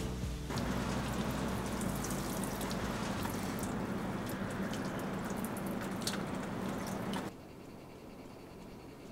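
Water pouring and splattering steadily with scattered drips, cutting off suddenly about seven seconds in to quiet room tone.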